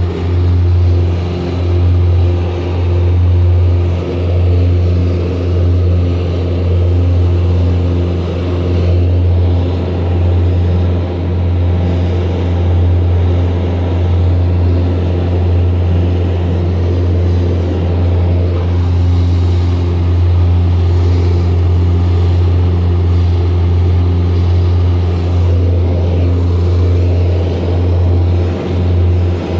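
Small private aircraft in flight, heard from inside the cabin: a loud, steady low engine drone with a few steady humming tones above it.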